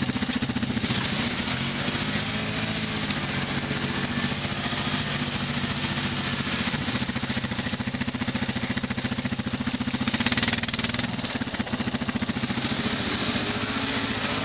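Four-wheeler ATV engine running steadily while the quad works through deep mud, getting briefly louder about ten seconds in.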